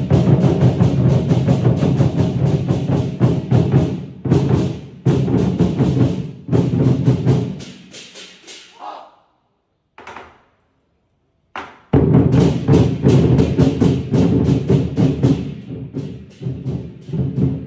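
An ensemble of Chinese barrel drums with tacked hide heads, beaten fast and loud with sticks. About seven seconds in the drumming dies away to near silence, broken by two lone strokes. The full ensemble comes back in loudly about twelve seconds in.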